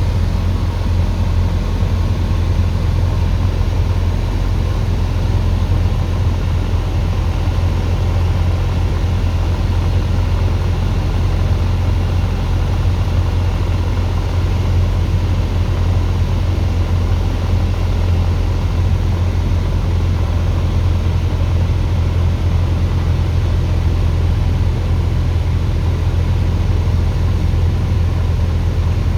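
Light aircraft's piston engine droning steadily at an even level, with a strong low hum and no change in pitch or loudness.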